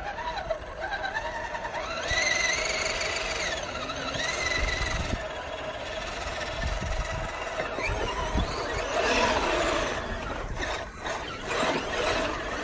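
Electric motors of radio-controlled scale crawler trucks whining, the pitch rising and falling with the throttle as they crawl.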